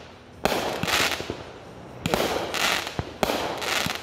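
Aerial fireworks going off: three sharp bangs, each followed by a loud hissing burst as the stars spread and burn.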